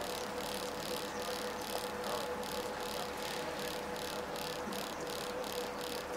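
Harbour ferry's engine running steadily under way, with a regular pulsing beat of about four a second and a faint steady tone underneath.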